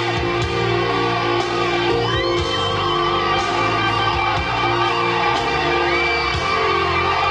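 Electric guitar solo with long held notes that bend up and down in pitch, over the band's slow, sustained chords.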